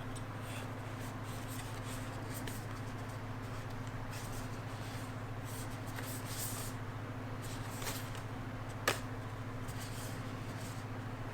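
Light rustling and clicking of packaging and small parts being handled, with one sharp click about nine seconds in, over a steady low hum.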